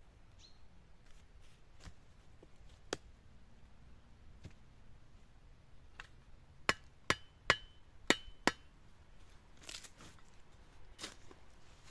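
Five sharp blows of a hand tool striking into the ground in quick succession, some leaving a brief high ring, after a few fainter knocks. Softer scraping in the soil follows near the end as earth is dug out with a small tool.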